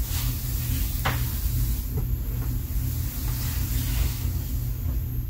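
Steady low rumble of room noise picked up by the recording microphone, with two faint clicks about one and two seconds in.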